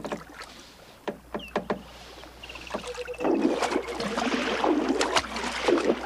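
River water splashing and sloshing as a person wades through it, starting about halfway in and going on steadily in uneven surges; a few light knocks come before it.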